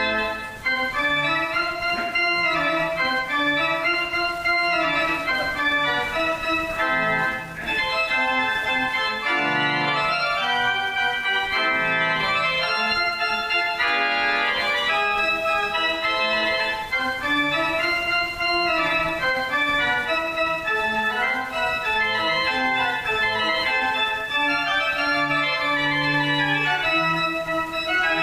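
Organ music: sustained, overlapping chords with a moving melody line.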